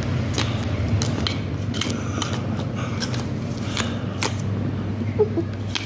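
Irregular light clicks and rustles as a cat plays with a string toy on a mat, over a steady low hum.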